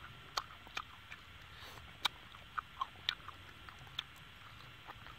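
Faint mouth sounds of someone eating roasted duck: scattered wet clicks and lip smacks while chewing, about ten short ones spread irregularly.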